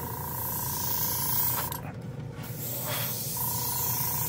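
Gaahleri entry-level gravity-feed airbrush spraying primer in two short bursts of hissing air, with a break a little under halfway, as fine lines are laid down. A thin steady whine sounds along with each burst, over a steady low hum.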